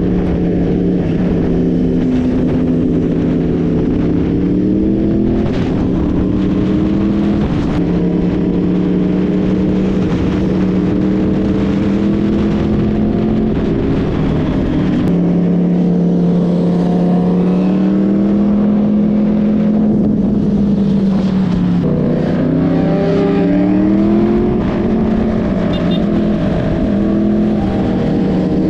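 Sport motorbike engine running at steady road speed, heard from the rider's seat. Its pitch climbs about four seconds in, and near the end it drops suddenly and then rises again as the bike accelerates.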